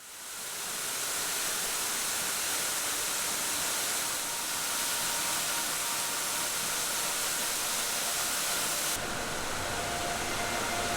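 Waterfall rushing: a steady hiss of falling water that fades in at the start and turns deeper and fuller about nine seconds in.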